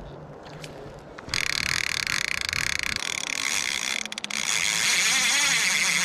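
Fly reel screaming as a hooked Atlantic salmon runs and pulls line off against nearly full drag. It starts suddenly about a second in as a loud, fast, high buzz, dips briefly near the end, then carries on.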